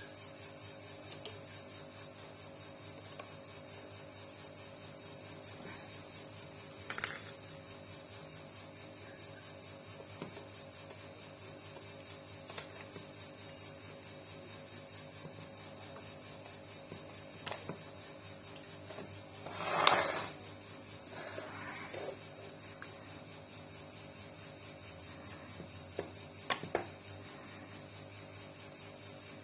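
Hand work on a sewing machine's metal parts: scattered small clicks and taps of tools and parts being fitted, with one louder clattering scrape about twenty seconds in, over a faint steady hum.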